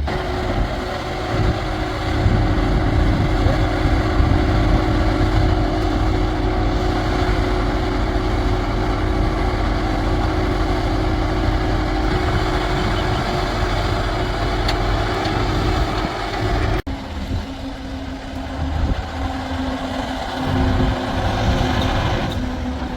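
Heavy diesel engines of earth-moving machinery running steadily with a held engine hum. About seventeen seconds in, the sound cuts abruptly to a quieter engine note.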